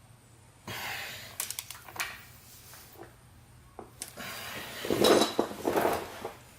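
Metal hand tools being handled on the scooter's variator: clinks, clicks and scraping in short bursts, loudest about five seconds in.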